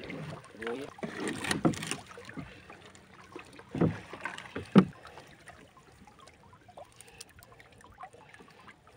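A wet gill net being hauled by hand over the side of a small outrigger fishing boat, with a few sharp knocks against the hull in the first five seconds and quieter handling noise after.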